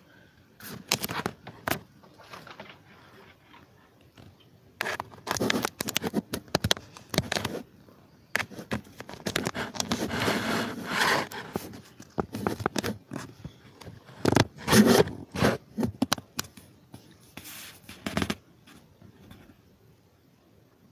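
Handling noise: irregular scrapes, rustles and knocks as objects are moved about by hand, coming in bunches with short quiet gaps between them.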